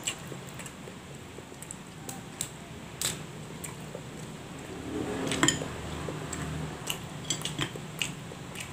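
Scattered small clicks and cracks of a cooked crab's shell being picked apart by hand, with a louder crack about five and a half seconds in. Light clinks of a fork on a plate are mixed in.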